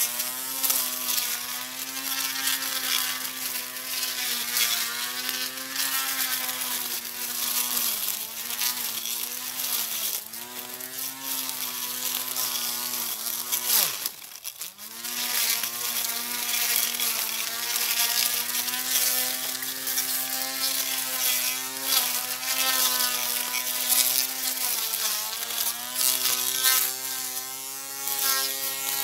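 Portable electric grass cutter's motor running with a steady whine, the pitch sagging briefly now and again as it takes load. About 14 seconds in the whine falls away almost to a stop, then spins back up to full speed.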